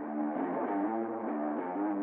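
Instrumental background music: a quiet, repeating plucked-string figure of short notes at a steady level.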